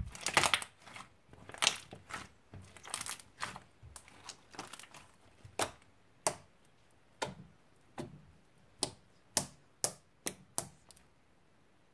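Slime being kneaded and poked with fingers: a quick run of crackling clicks for the first few seconds, then single sharp pops of air pockets squeezed out of it about once or twice a second, stopping about a second before the end.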